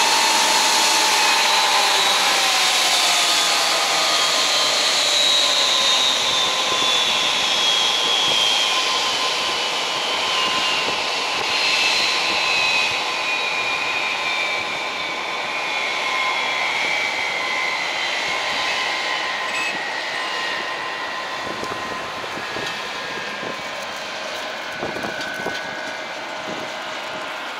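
Jet airliner's turbofan engines, a loud rushing roar with high whines that fall slowly in pitch as the sound gradually fades.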